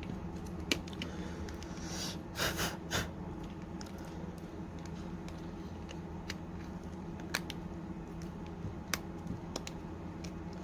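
A few sharp clicks and taps of small repair tools on the phone's parts, with a brief scraping rustle about two and a half seconds in, over a steady background hum.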